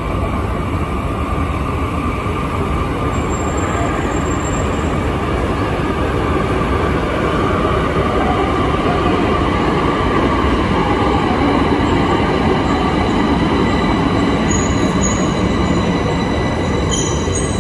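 Bombardier metro train running in the station: a steady rail rumble with thin, steady whining tones over it, growing slightly louder toward the middle, with new high-pitched tones coming in near the end.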